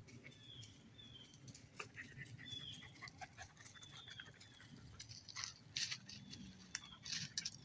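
Footsteps in dry leaf litter, with the loudest rustles and crackles in the second half. A bird repeats a short down-slurred chirp about once a second.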